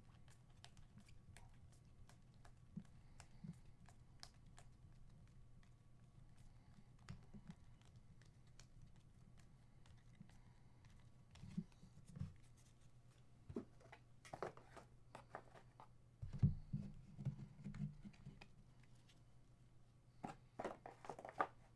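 Panini Prizm trading cards being flipped through by hand, with small ticks and slides of card stock as each card is moved. There are louder clusters of knocks and rustling in the last third, over a low steady hum.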